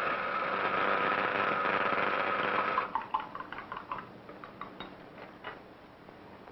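A steady mechanical buzz with a held tone, starting suddenly and cutting off after about three seconds, then a scatter of light clicks and clinks of laboratory glassware being handled on the bench.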